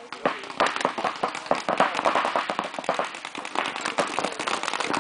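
Paintball markers firing rapid, irregular strings of shots that crack and overlap.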